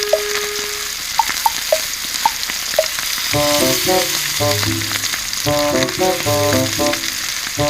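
Steady sizzling and crackling at a campfire, with a few sharp pops in the first few seconds. Background music of short melodic notes comes in about three seconds in.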